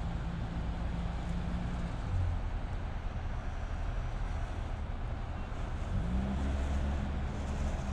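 An engine running with a low, steady hum; about six seconds in its pitch rises and then holds higher, as it speeds up or takes on power.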